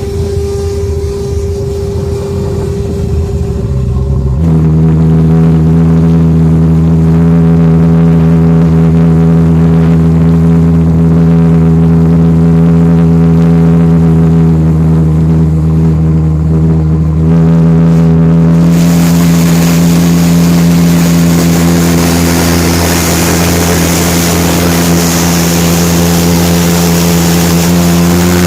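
Homemade Lockwood valveless pulse jet engine running, very loud. For the first four seconds it runs unevenly with a higher tone, then it locks into a steady, deep, fixed-pitch buzzing drone. About two-thirds of the way through, a rushing noise joins over the top.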